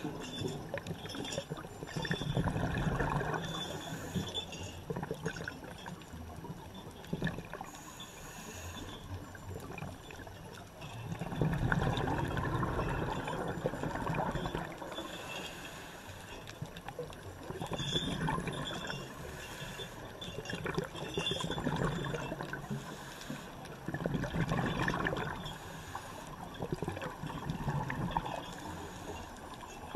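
Underwater bubbling and gurgling from scuba regulator exhaust bubbles, swelling in rushes every few seconds with each diver's exhalation over a steady watery hiss.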